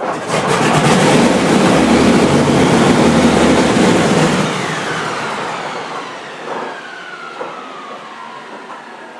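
Wright R-3350 18-cylinder radial aircraft engine firing and running loudly for about four seconds, then dying away with a falling whine as it winds down. The engine gets enough fuel to fire but not enough to keep running, so it almost starts.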